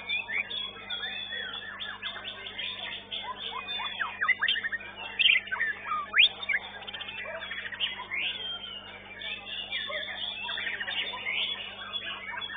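White-rumped shamas (murai batu) singing, several at once: a dense, varied stream of quick whistles, rising and falling sweeps, chirps and trills, loudest around the middle with a few sharp whistles.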